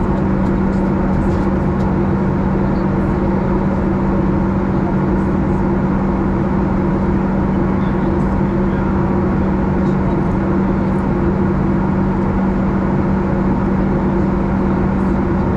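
Steady cabin noise inside a Boeing 737 in flight: the constant rush of engines and airflow with a steady low hum.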